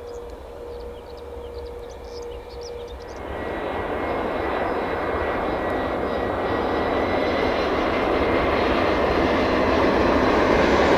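Airbus A380 jet engines running as the airliner rolls along the runway: a steady roar with a high whine that swells from about three seconds in and keeps building. A few bird chirps are heard over the quieter start.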